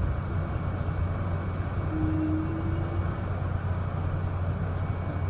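R68A subway car's steady low rumble as it slows into a station, with a short faint whine about two seconds in.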